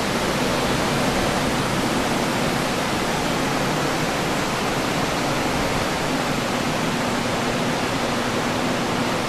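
Steady, loud rush of air from blower fans (air movers) running to dry out water damage, with a faint low motor hum underneath.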